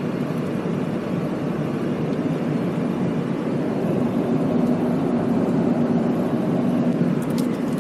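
A vehicle on the move: steady road and engine noise with a low, even hum.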